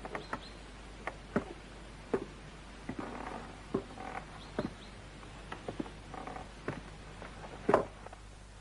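Light taps and knocks at irregular intervals, with a louder knock near the end, over a faint steady background and a few faint brief chirps.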